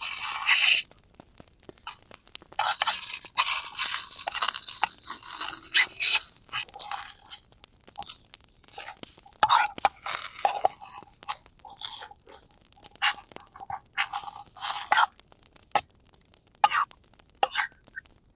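Irregular crunching and crackling close to the microphone, in bursts of up to about a second, with scattered sharp clicks between them.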